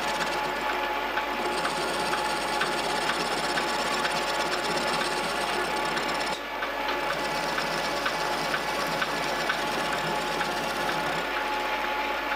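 Milling machine running with an end mill cutting into a metal bracket blank held in a vise: a steady machining sound with a constant tone, briefly dipping about six seconds in.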